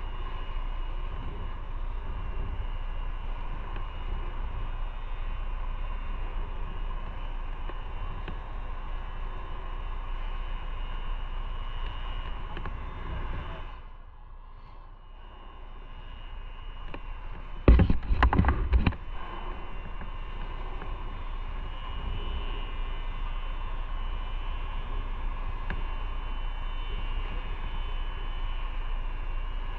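Motorcycle on the move: steady engine and wind noise. It quiets briefly about halfway through, then comes a short cluster of loud knocks lasting about a second.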